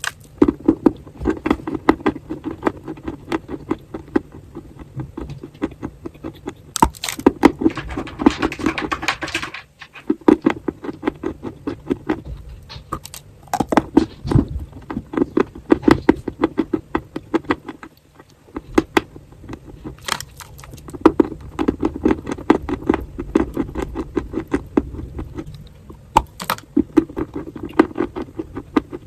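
Crunching and chewing of crumbly chalky clay: dense runs of rapid sharp crackles in several bursts, with a short hissing crumble about seven seconds in.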